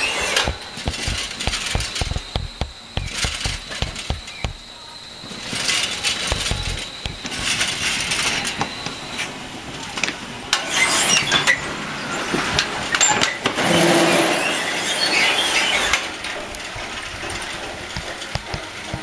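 Mechanical noise from a greenhouse bed machine running along the crop beds: metal squealing and clattering, with many sharp knocks and a steady high whine through the first half.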